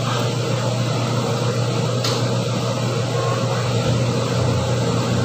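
Steady low mechanical hum over a background hiss, with a single sharp click about two seconds in.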